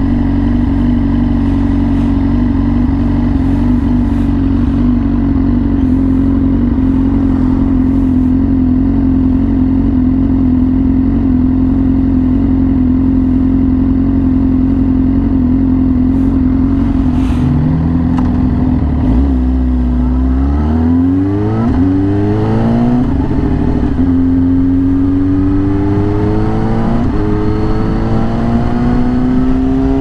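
Yamaha R6's inline-four engine through an SC Project exhaust, running at a steady high pitch, then revving up in a few quick rising sweeps about two-thirds of the way in, and climbing steadily in pitch again near the end.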